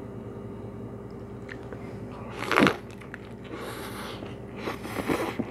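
A lettuce wrap of roast pork and rice vermicelli being bitten into and chewed close to the microphone: a loud first bite about halfway in, then crisp crunching in two short bursts.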